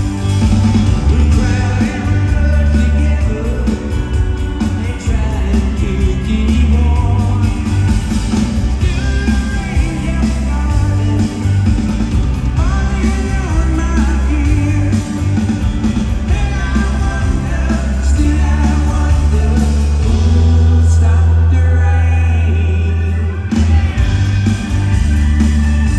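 Live rock band playing electric guitars, bass and drums, with a male lead singer. About twenty seconds in, a long low note is held for a few seconds while the higher parts drop away, then the full band comes back.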